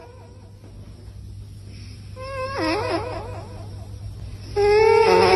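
A sleeping cat snoring, with a high, wavering whistle on its breaths: once about two seconds in, and again, louder, near the end.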